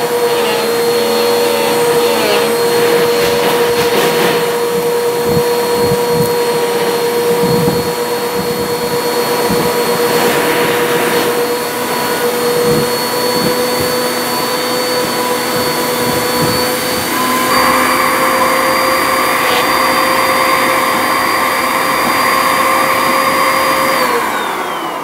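Bissell upright vacuum cleaner running steadily with a high motor whine while sucking up clumps of fluff through its hose, with scattered soft knocks. About seven seconds from the end the sound turns brighter and louder, and near the end the motor's whine falls in pitch as it winds down.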